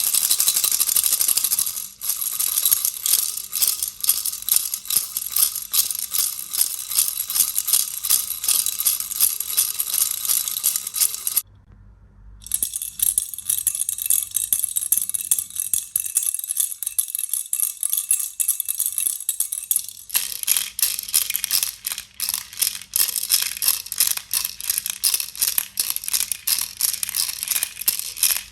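A baby rattle shaken fast and continuously, giving a dense rattling of loose pieces. It breaks off for about a second some twelve seconds in, then comes back softer with a few steady ringing tones. At about twenty seconds it returns to the full, dense shaking.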